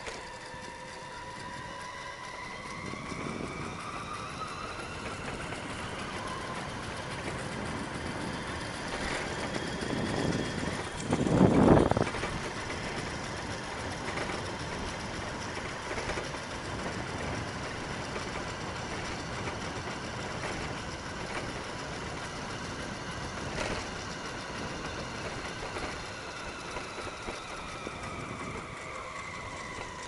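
Riding noise from a moving bicycle: a whine that climbs in pitch over the first several seconds, holds, then drops near the end, over steady road and wind noise. A loud low rumble about eleven seconds in.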